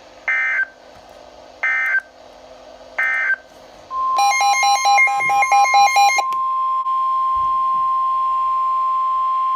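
NOAA Weather Radio alert signal: three short screeching SAME data bursts about a second and a half apart, then the steady 1050 Hz warning alarm tone starting about four seconds in and holding. This sequence marks the start of a new warning broadcast. For the first two seconds of the tone, a rapid alternating beeping alarm sounds over it.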